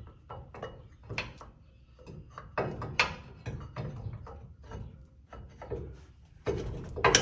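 Brake caliper loaded with new pads being worked by hand over a drilled and slotted rotor: repeated short knocks, clicks and scrapes of pads and caliper against the rotor, loudest near the end. The rotor is thicker than stock, so the caliper is a tight fit with just enough clearance.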